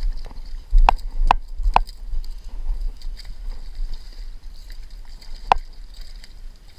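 A hooked bass splashing and thrashing at the water's surface as it is reeled in against a rocky bank, with low wind rumble on the microphone. Sharp clicks come three in quick succession about a second in and once more near the end.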